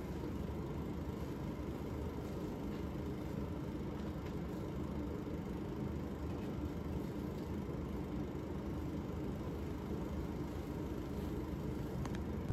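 A steady low machine hum with a faint hiss, unchanging throughout.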